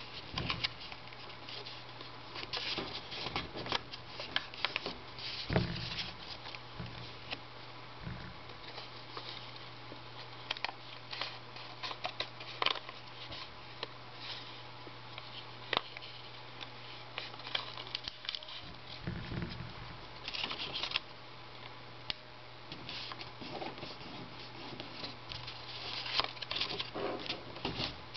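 A sheet of origami paper being folded and creased by hand: irregular rustling, crinkling and crackling as the paper is pinched, bent and pressed flat, with a few soft thumps. A steady low hum runs underneath.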